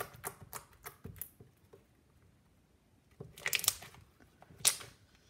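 Sticky white slime with golden sprinkles clicking and popping under fingers pressing into it, then crackling loudly twice as it is stretched and pulled apart.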